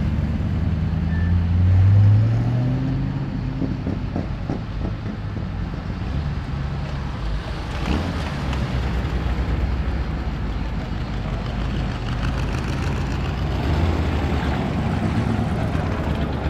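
Engines of hot rods and custom cars driving past one after another at low speed; one engine rises in pitch as it pulls away, loudest about two seconds in, and another swells near the end.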